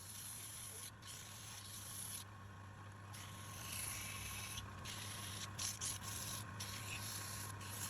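Wood lathe running with a steady motor hum while a tool scrapes against the spinning wood, the scraping breaking off several times for moments, longest about two seconds in.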